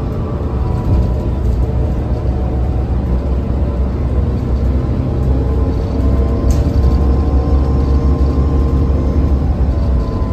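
Interior of a 2008 New Flyer DE40LFA diesel-electric hybrid bus cruising at highway speed. Its Cummins ISL inline-six diesel and Allison EP40 hybrid drive give a steady low drone under road noise, with a faint whine over it. A single small click comes about six and a half seconds in.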